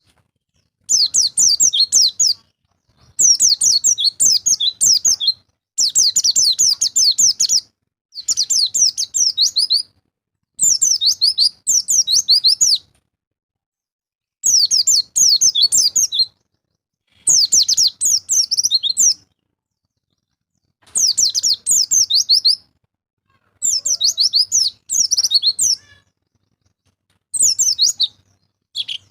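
White-eye (pleci) singing in repeated bursts of about two seconds, each a fast run of high, chirping notes that slide downward, broken by short pauses.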